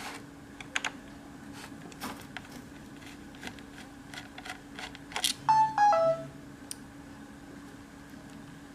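Small sharp clicks and taps of hand tools and plastic and metal parts as a laptop's hard drive is being removed, over a steady low hum. About five seconds in, a louder click is followed by three short electronic beeps, each lower in pitch than the one before.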